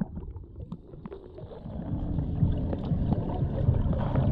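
Muffled underwater noise picked up by a submerged action camera: a dull low wash of moving water that grows louder over the second half as swimmers stroke past the lens.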